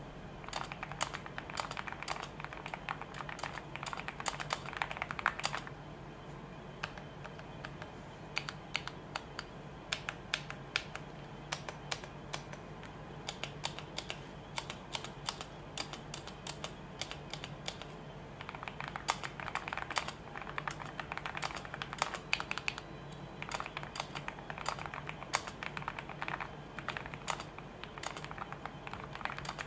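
Typing on a freshly built AKKO SPR75 aluminium-cased custom mechanical keyboard fitted with Gateron tea (brown) and silver switches: quick runs of key clacks with short pauses between runs.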